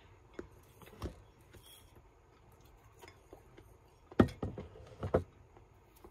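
Light computer-mouse clicks and small knocks at a desk, with a few louder knocks about four to five seconds in.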